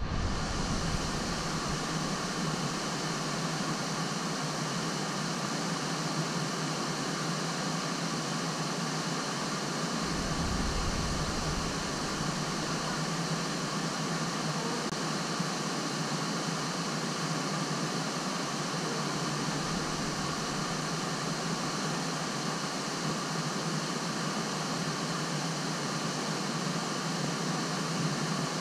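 Iguazu Falls: a steady, unbroken rush of water crashing down into the river below, with a low rumble swelling briefly twice.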